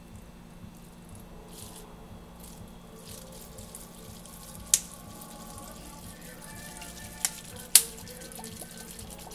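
Vodka pouring from a glass bottle into a plastic water bottle, a trickling gurgle whose pitch rises as the bottle fills. Three sharp clicks, the loudest about three quarters through, as the bottles knock together.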